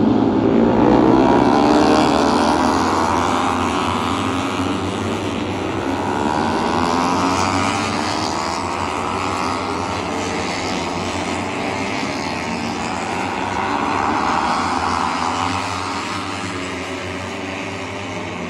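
A pack of Moto3 racing motorcycles, 250 cc single-cylinder four-strokes, passing at high revs, their many engine notes sweeping up and down as they go by. The sound is loudest about a second in, with further swells as more bikes pass.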